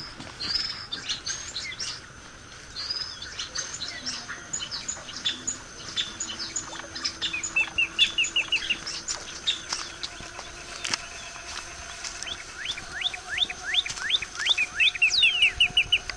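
Several songbirds chirping and singing, with quick series of short falling notes about halfway through and again near the end.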